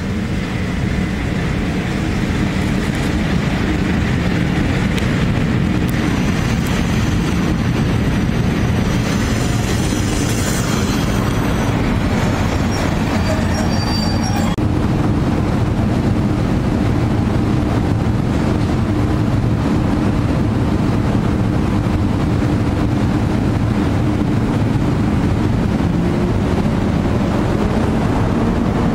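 EP07 electric locomotive hauling a passenger train rolling slowly past at close range, a steady loud drone that swells in the first couple of seconds. About ten to fifteen seconds in, thin high brake squeals come in as the train slows.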